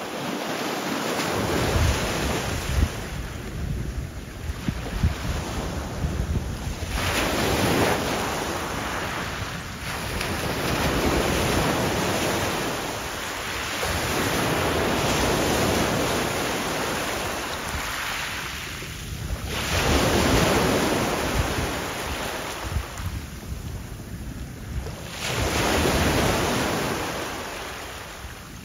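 Small sea waves breaking and washing up on the shore, the rushing surf swelling and fading about every five or six seconds, with wind rumbling on the microphone.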